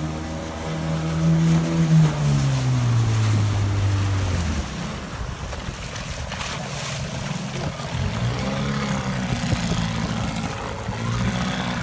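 Johnson GT 10 two-stroke outboard running at speed, then throttled back: its pitch falls over about two seconds as the boat comes off the plane, settling to a low, uneven running note near the end. Wind on the microphone and water splashing fill the middle.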